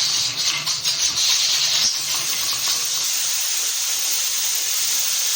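Pressure cooker venting steam: a loud, steady hiss that cuts off suddenly near the end as the pressure is released before the lid is opened.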